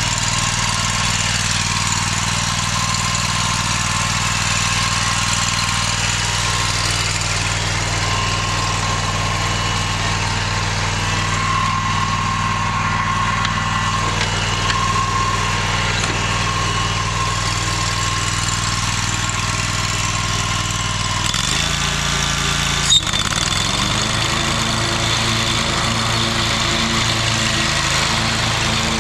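Scag zero-turn mower engine running steadily. About three quarters of the way through, the engine note shifts and takes on a pulsing beat, and a single sharp click is heard just after.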